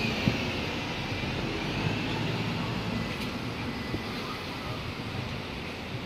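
Street traffic in a town centre: a steady hum of cars on the road, with a faint wavering high whine over the first couple of seconds and a few light knocks.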